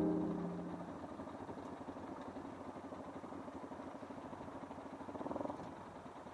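Motorcycle engine idling steadily, with a brief swell about five seconds in.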